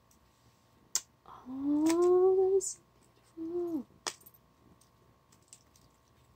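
A woman's closed-mouth hum, a drawn-out "mmm" rising in pitch, then a shorter "hm" that drops off at the end, with a light click before and after from handling a necklace chain and its display card.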